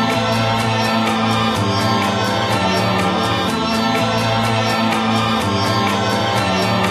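Background electronic music with a steady beat and sustained chords.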